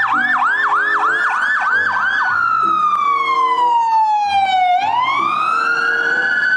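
Electronic ambulance siren on a fast yelp of about three rising sweeps a second, switching a little over two seconds in to a slow wail: one long fall in pitch, then a rise to a high held note.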